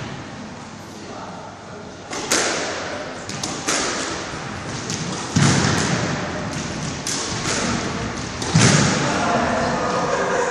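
Squash rally: a run of sharp smacks as the ball is struck by rackets and hits the court walls, with two louder, heavier thuds, one about halfway through and one near the end.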